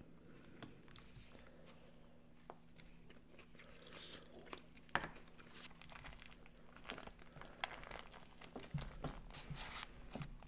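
Faint eating sounds: soft chewing of a rice-paper spring roll and bowl food, with a few small sharp clicks scattered through; very quiet overall.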